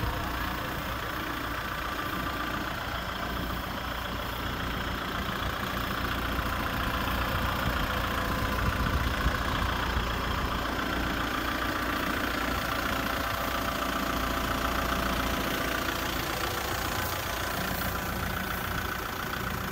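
Kubota M6040SU tractor's diesel engine running steadily close by, a little louder through the middle.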